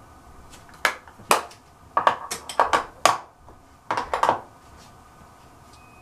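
Small hard makeup items, such as a cosmetic pencil and plastic cases, clicking and clacking as they are handled and set down on a hard surface: about a dozen sharp clacks in quick clusters over three seconds.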